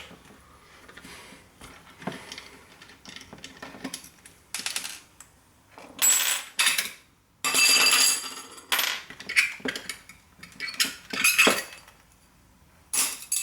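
Metal parts of a dismantled old hard drive, platters among them, clinking, scraping and knocking as they are handled and lifted out, with a few brief ringing clinks of metal on metal.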